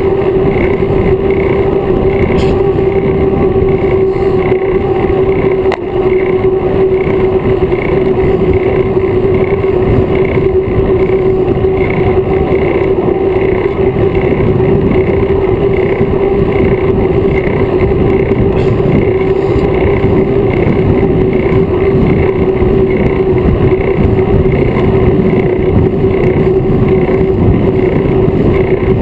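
Wind rush and tyre noise on a handlebar-mounted action camera riding in a bicycle race pack: a loud, steady rumble with a constant hum through it and a faint pulse about one and a half times a second.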